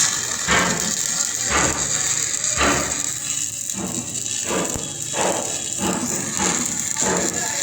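Hammer blows on metal, repeated roughly once a second, over a steady high hiss.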